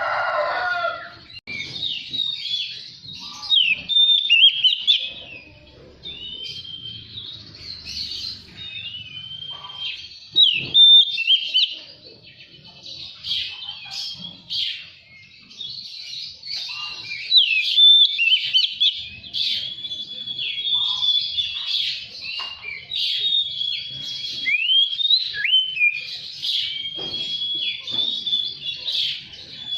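Oriental magpie-robin singing a fast, varied, high-pitched song of gliding whistles, trills and harsh chattering notes, almost without pause. A short lower-pitched burst of sound comes right at the start.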